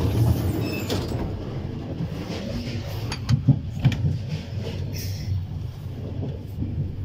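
Steady low rumble of a moving passenger train heard from inside the coach, with an interior automatic sliding door working at the press of its button and a few sharp clicks and knocks around the middle.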